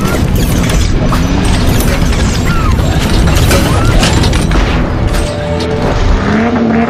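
Loud cinematic sound design with music, dense mechanical clanking and repeated booming hits.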